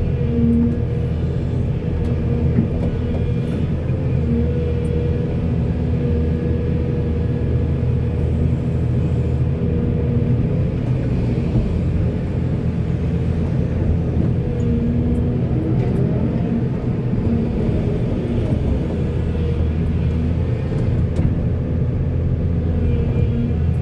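Backhoe's diesel engine running steadily at work: a low rumble with a steady hum above it.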